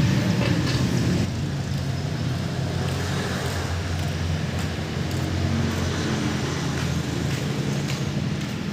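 An engine running steadily, easing to a lower, quieter note about a second in.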